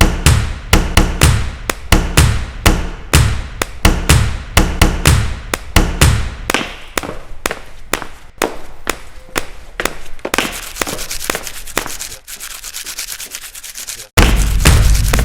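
A beat built from recorded everyday noises: sharp percussive hits with low thumps, about two to three a second. About ten seconds in they give way to a steady rubbing, scraping noise, which drops out briefly near the end and comes back louder and denser.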